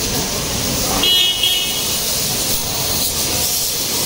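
A vehicle horn gives one short toot about a second in, over the steady hiss of car-wash water spray.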